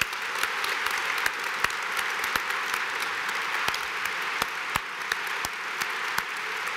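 Large audience applauding steadily, with single sharp claps from nearby hands standing out.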